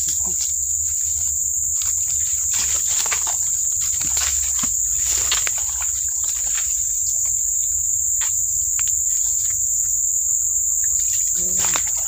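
A steady, high-pitched insect drone, crickets or cicadas, over scattered snaps and rustles of twigs and leaves as people push on foot through forest undergrowth.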